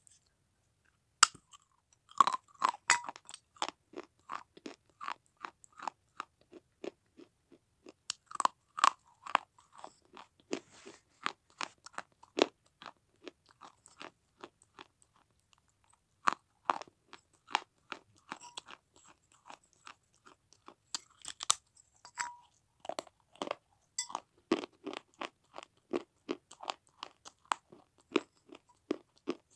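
Baked terracotta clay, a diya and saucer pieces, being bitten and chewed: a long run of sharp, dry crunches, a few a second, starting about a second in.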